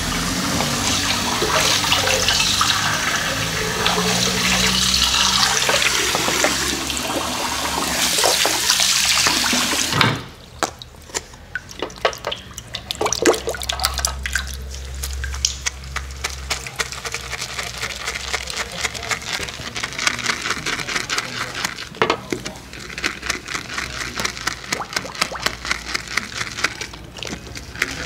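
Running water, an even hiss that cuts off about ten seconds in, followed by a long run of small quick clicks and crackles.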